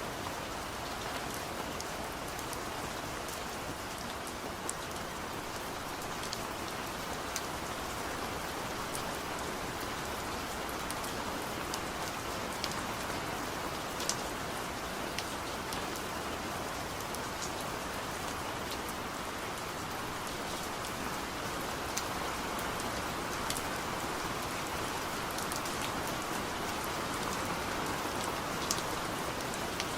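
Steady rain falling, with individual raindrops ticking sharply on a surface now and then over the continuous patter.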